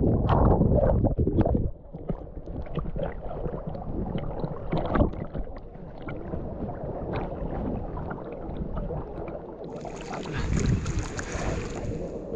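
Seawater sloshing and splashing around a camera held at the surface by a swimmer. It turns muffled about two seconds in as the camera dips under, and a brighter rush of splashing comes near the end.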